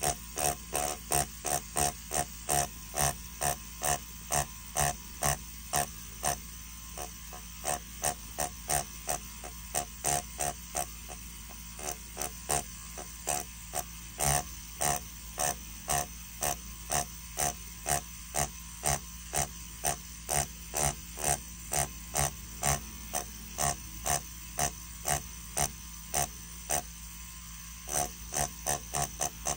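Mast Archer rotary tattoo pen with a ballpoint cartridge, running at 5 volts on paper: a steady motor hum under a regular clicking about three times a second, with a few short breaks.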